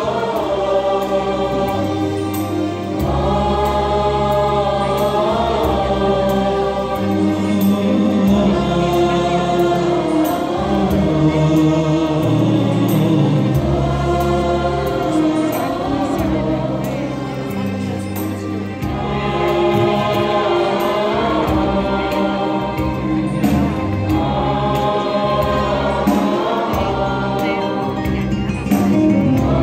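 Mixed Syriac church choir of men and women singing a hymn in harmony, with sustained low notes underneath that change pitch in steps.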